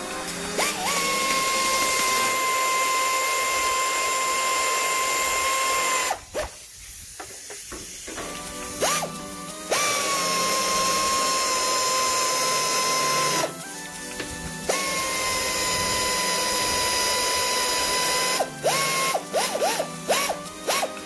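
Pneumatic air ratchet wrench spinning bolts into a plastic truck bumper's frame: a steady high whine in three long runs of several seconds each, then a string of short quick blips near the end as the bolts are run down.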